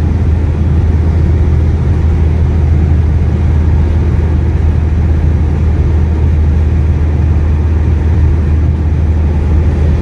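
Steady low drone of a car driving on a highway, heard from inside the cabin: constant road and engine noise with an even low hum.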